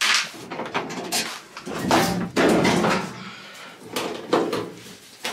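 Sheet-metal cabinet panel of a top-loading washing machine being worked loose and handled: a series of knocks, clunks and scrapes.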